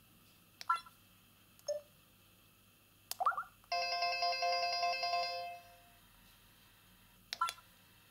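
Samsung SGH-Z130 mobile phone's speaker playing short synthesized ringtone and alert sounds: a few brief electronic chirps with pauses between them, and one steady held tone lasting about two seconds near the middle.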